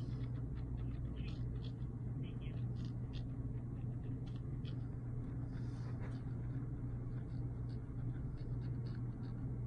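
Steady low hum with faint short ticks scattered over it.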